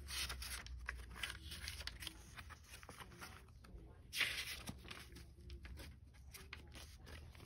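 Paper pages of a comic digest being leafed through: faint rustling and crinkling, with one louder rustle about four seconds in.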